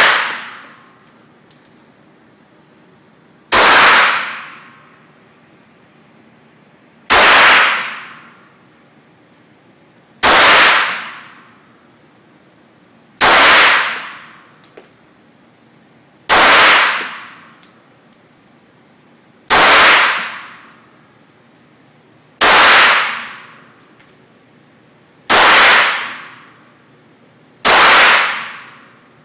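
Nine single shots from a 9mm Glock 26 subcompact pistol, fired slowly at about one every three seconds. Each shot is very loud and rings out for about a second, with a few small clicks between some of them.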